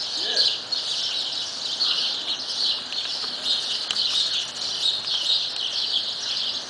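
Dense, steady high-pitched chirping chorus that runs on without a break.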